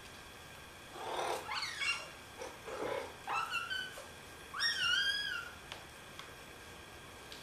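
A cat meowing: a string of pitched meows over about five seconds, each rising then falling in pitch, the last one the loudest and longest.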